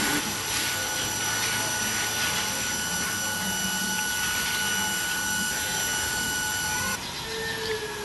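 A steady mechanical whir with a few high whining tones, which stops abruptly about seven seconds in.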